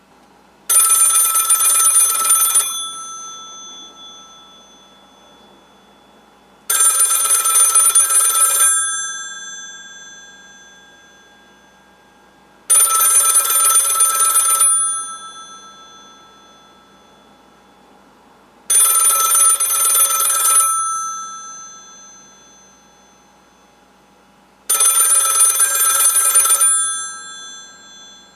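Old rotary-dial telephone bell ringing: five rings of about two seconds each, coming every six seconds, each bell tone dying away after the ring stops.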